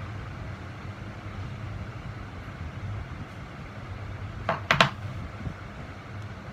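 A flat metal plate set down on a table: three quick clacks close together about four and a half seconds in, over a steady low hum.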